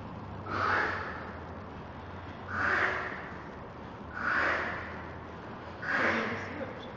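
A woman hawking and snorting in her throat four times, about every two seconds, drawing up phlegm to spit.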